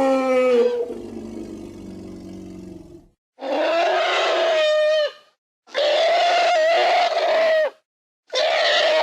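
Sound-effect woolly mammoth calls: a loud roaring call that drops in pitch and trails off into a lower rumble, then three long, steady-pitched blasts of about two seconds each, separated by short gaps.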